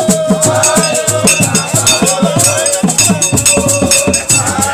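Traditional Ekpe masquerade music: drums beating a quick, even rhythm of about four to five strokes a second, with shaken rattles and a held high note over them.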